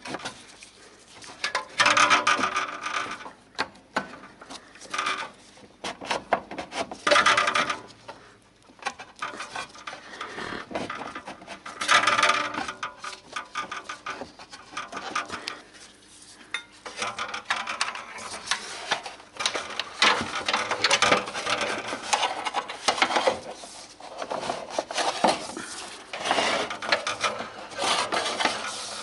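Scraping and rasping from hand work on the car's underside, in uneven bursts a second or two long that come and go.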